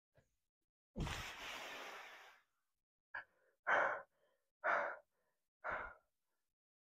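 A man breathing hard from exertion: one long sighing exhale, then a brief puff and three short breaths about a second apart.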